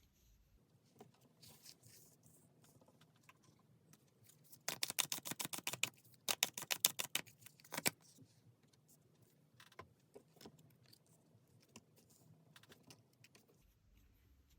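Tarot cards being shuffled: two quick runs of rapid flicking clicks about five seconds in, with faint rustles of the cards being handled before and after.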